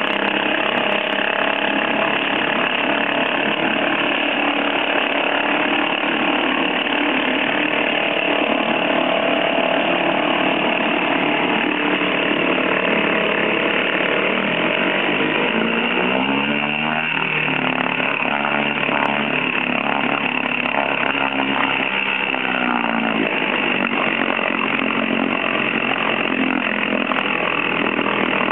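Evinrude Junior short-shaft two-stroke outboard motor running well in a test bucket of water, its propeller churning the water. About halfway through the revs rise, hold for several seconds, then drop back.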